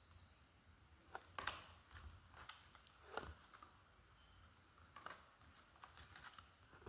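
Near silence broken by faint, scattered taps and clicks of trading cards being handled.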